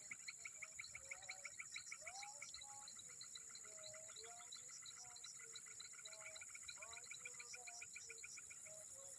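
Faint chorus of wild insects, with a steady high drone throughout. A rapid train of pulsed calls, about eight a second, runs over the first three seconds, and short chirping calls are scattered throughout.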